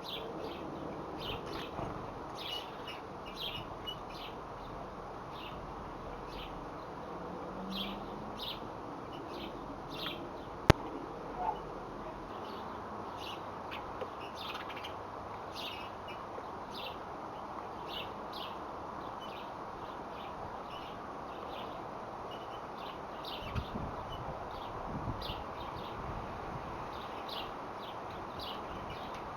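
Birds chirping, short high notes repeated about once a second over a steady background hiss; a single sharp click a little before eleven seconds in.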